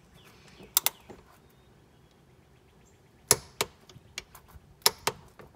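Socket wrench on an extension tightening transmission mount nuts to torque: sharp metallic clicks in pairs every second or two, with fainter ratchet ticks between.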